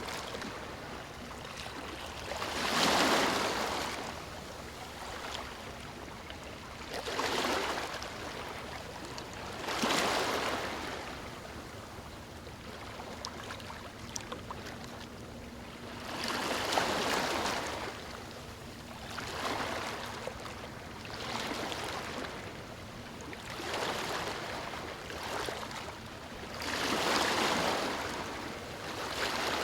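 Small waves breaking and washing up on a beach, a fresh rush of surf every two to four seconds over a steady wash of water.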